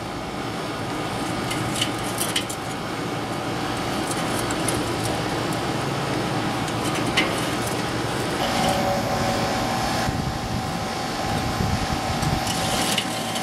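Metal grill tongs clinking and scraping against hot charcoal briquettes and the charcoal grate in a kettle grill as the coals are pushed apart: a few light, sharp clinks over a steady background noise.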